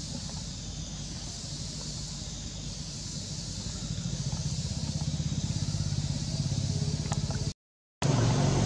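A motor vehicle engine running, growing louder from about halfway through, over a steady high hiss. The sound drops out for a moment near the end.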